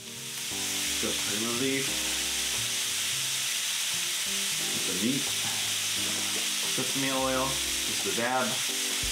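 Thin slices of beef brisket sizzling steadily on a hot grill plate, a constant high hiss. Faint background music plays underneath.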